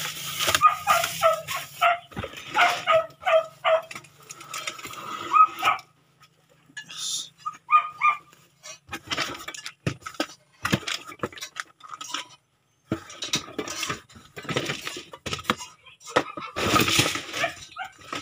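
A dog barking in a quick run of short barks over the first few seconds, over the rustle of plastic bags and cardboard as groceries are unpacked from a box, with scattered knocks and clinks.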